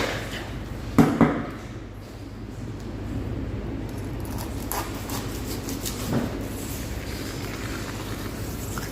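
Two sharp knocks in quick succession about a second in, then a few fainter knocks, over a steady low hum.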